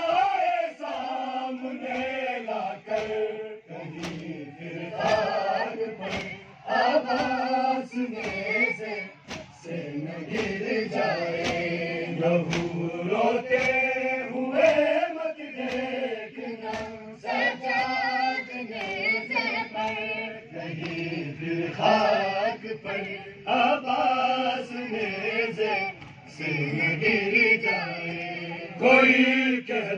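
A large crowd of men chanting a noha, a Shia mourning lament, in unison, with sharp slaps of chest-beating (matam) striking together in a steady beat.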